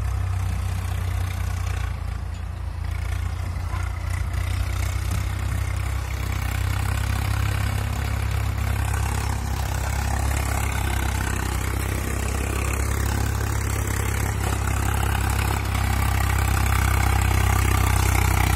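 Swaraj 855 FE tractor's three-cylinder diesel engine running steadily as it pulls a loaded trolley, with a deep, even drone that grows a little louder near the end as the tractor comes closer.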